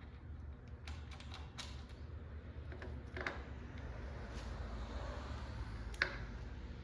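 Light metal clicks and clinks from the timing chain and cam gear being handled and fitted on an LS1 V8 engine, with a sharper click about six seconds in, over a low steady hum.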